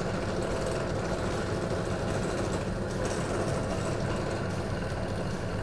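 Bench drill press running steadily, its bit drilling a pilot hole into a plastic project enclosure.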